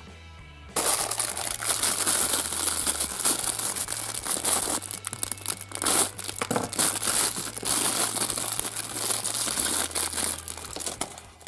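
Clear plastic wrapping bag crinkling and rustling as a small plastic figure is unwrapped by hand, starting about a second in and going on almost without a break.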